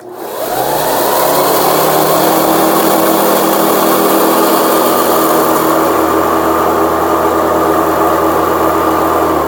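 Hoover Preferred Commercial upright vacuum cleaner switched on, its motor spinning up over about a second and then running loud and steady with a high whine. The machine is clogged, and the owner says it is blowing dust out.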